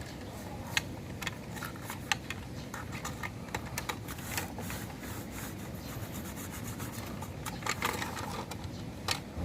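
Plastic toy backhoe scooping and scraping through sand: irregular scrapes and clicks.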